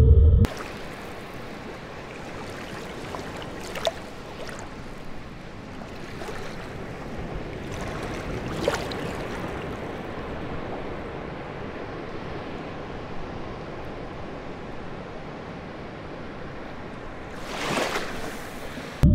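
Steady wash of sea water, like surf or water moving at the surface, with a few short louder swells, the longest near the end. The low end of a whale call stops about half a second in.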